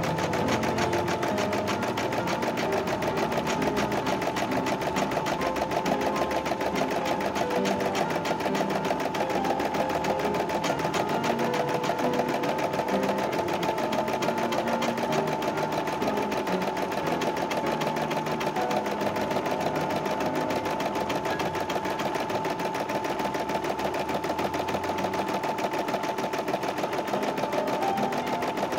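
A CNY e960 portable computerized embroidery machine running steadily, its needle stitching in a fast, even rhythm over a constant motor tone while it sews the outline of the design.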